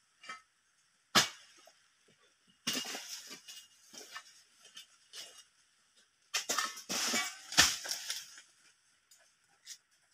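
Oil palm being harvested with a long pole sickle: sharp cracking strikes as the blade cuts into the palm, one about a second in and a louder one late, with rustling and crashing of palm fronds between.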